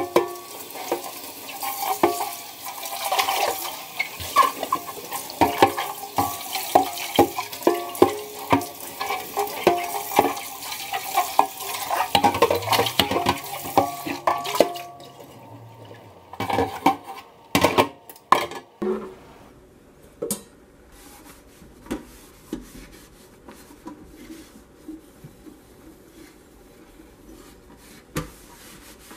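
Tap water running over an air fryer basket in a stainless steel sink, with frequent knocks and clatters of the basket against the sink. The water stops about halfway through, followed by a few louder knocks, then only faint taps and rubbing as the air fryer is wiped with a cloth.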